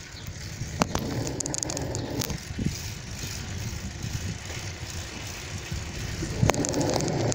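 Bicycle riding along an asphalt road: steady low wind buffeting on the microphone and tyre rumble, with a few sharp rattling clicks from the bike.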